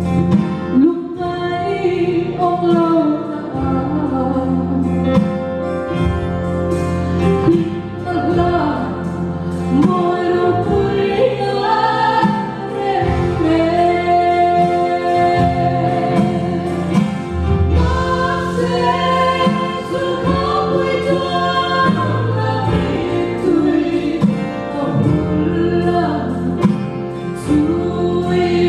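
A woman singing a Mizo gospel song into a handheld microphone over an instrumental accompaniment, with long held notes.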